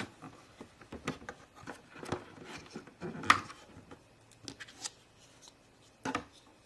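Plastic toy playset being handled, with scattered light clicks and taps, the loudest about three seconds in.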